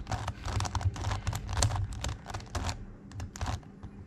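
Megaminx puzzle faces being turned quickly by hand: rapid clicking and clacking of plastic pieces, with handling rumble, thinning to a few scattered clicks near the end.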